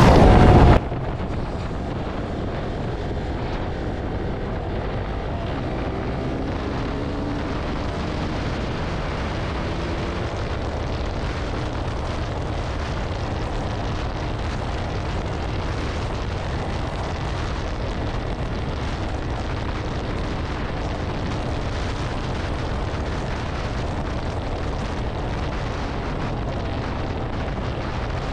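Steady wind rush and rumble on the camera microphone of a KTM Duke 200 motorcycle cruising at highway speed, with the bike's engine and road noise underneath.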